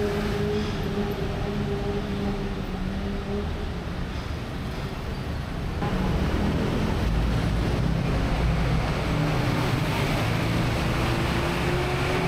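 Bangkok BTS SkyTrain running: a steady rumble of the ride with a humming motor tone, which gets louder from about six seconds in.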